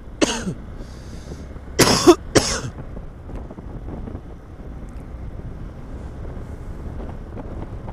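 A person coughing three times in short harsh bursts, one right at the start and two close together about two seconds in, over the steady low rumble of a motorcycle ride and wind on the microphone.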